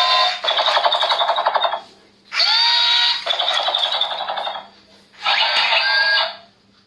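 A toy robot's built-in speaker playing a gunfire sound effect in three bursts of about two seconds, each a short electronic tone followed by a fast buzzing rattle, as its arm launcher fires suction-cup darts.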